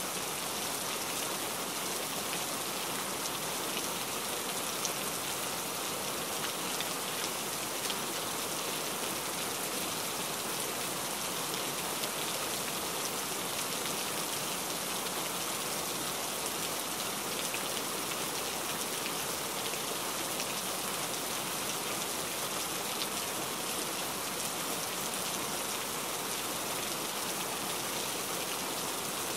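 Steady rain falling, an even hiss of drops with a few louder drops ticking now and then.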